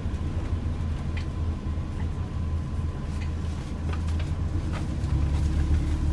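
Cabin noise of a moving ADL Enviro 400H hybrid double-decker bus: a steady low rumble from the drivetrain and tyres on the road, with a faint steady whine and a few light clicks or rattles.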